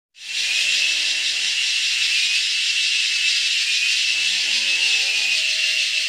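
Male cicadas calling from the trees: a loud, steady, high-pitched buzzing drone made by the vibrating tymbal membranes in their abdomens.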